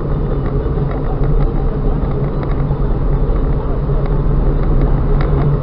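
Car driving at a steady speed, heard from inside the cabin through a dashcam's built-in microphone: a steady low rumble of engine and tyre road noise.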